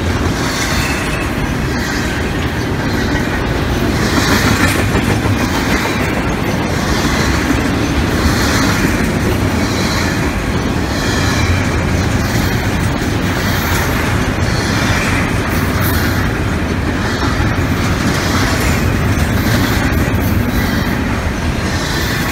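Double-stack intermodal freight cars rolling past close by: a steady rumble of steel wheels on the rails, swelling every couple of seconds as each car's wheels go by.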